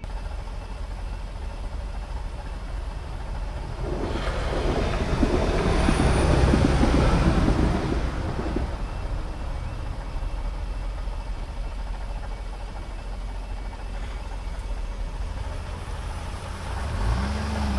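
A train passing over a level crossing, building to its loudest about five to eight seconds in and then fading. Near the end a car engine revs as traffic starts to move once the barriers lift.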